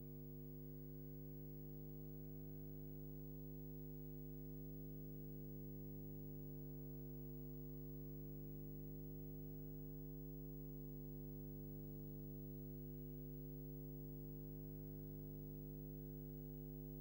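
Steady low electrical hum, a buzzy mains-type drone that does not change.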